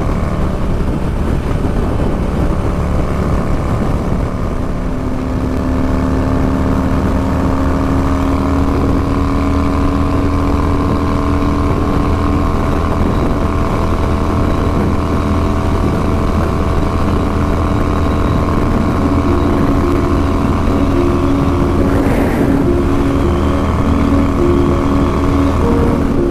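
Yamaha SCR950 motorcycle's V-twin engine running steadily on the move, its pitch drifting slightly up and down.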